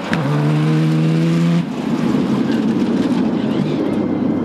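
Off-road racing buggy engine held at steady high revs, then cutting abruptly about a second and a half in to a rougher, noisier engine sound.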